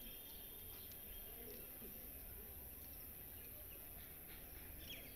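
Faint birdsong at dawn: scattered short bird chirps, thin and high, over a low steady background rumble.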